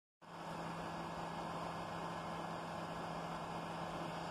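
Steady hum and rushing noise from an R68-series subway train standing at the platform, with a constant low tone running under it.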